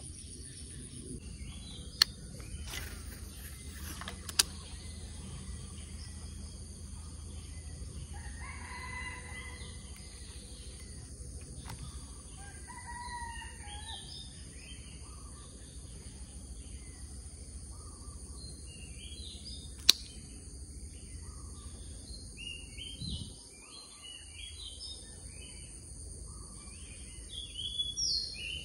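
Birds calling and chirping in short scattered phrases over a steady high insect drone, with three sharp clicks.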